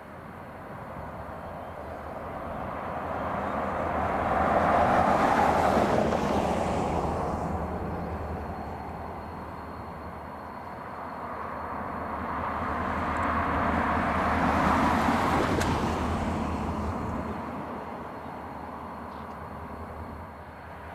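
EMD diesel freight locomotive approaching slowly across a steel truss bridge, its engine a low steady drone. Two swells of rushing noise rise and fall, peaking about five and fifteen seconds in.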